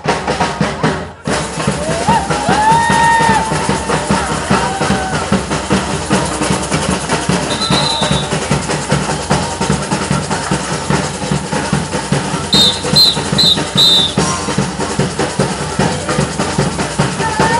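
Batucada samba percussion band drumming: bass drums and snare drums in a steady, fast, dense rhythm. A short high whistle sounds near the middle, and four quick whistle blasts come in a row later.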